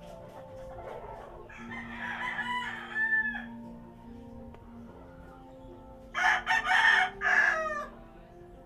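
A rooster crowing twice, each crow lasting under two seconds and falling in pitch at the end. Soft music plays steadily underneath.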